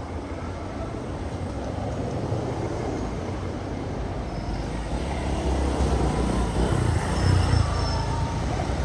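Steady low rumble of vehicle traffic, growing gradually louder.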